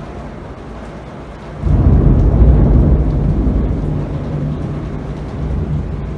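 Heavy rain falling steadily, then about two seconds in a sudden loud clap of thunder that rolls on as a deep rumble and slowly dies away.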